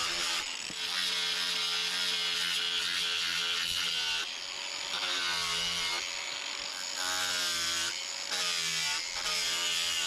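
Angle grinder with a sanding disc running against wet rough-sawn timber, the motor tone and grinding hiss steady. The sound changes abruptly every second or two as the footage jumps.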